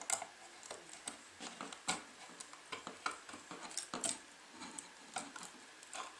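Faint, irregular small clicks and taps of plastic and metal parts being handled while working on a wall outlet and its cover plate.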